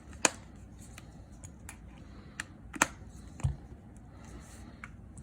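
Scattered sharp clicks and taps of small repair tools and phone parts being handled as an iPhone is closed back up. One loud click comes just after the start, another near three seconds in, with a soft dull thud shortly after it.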